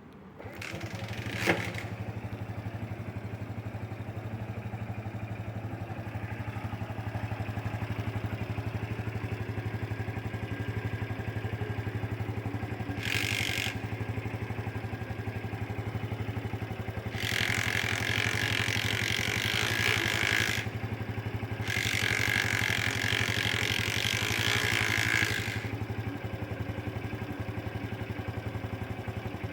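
A JA59 motorcycle engine is started about a second in and then idles steadily. It is the engine being checked for an abnormal noise. Three times later on, a hissing whine rises over the idle and then stops.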